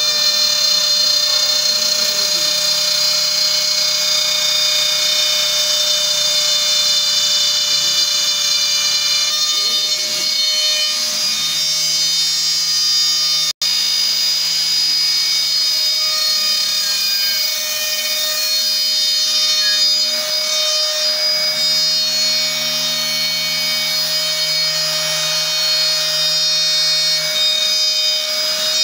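Trim router spindle on a homemade CNC machine running with a steady high whine as it cuts a letter outline into a board. Under it, the machine's stepper motors hum in low tones that shift pitch in steps as the axes move. The sound drops out for an instant just under halfway through.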